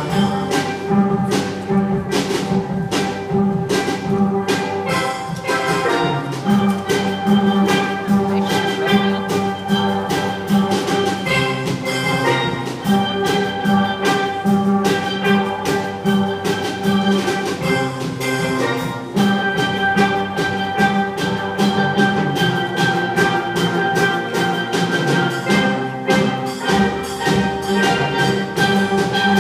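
Steel drum band playing a heavy-metal tune arranged for steelpans, with a steady beat of struck notes.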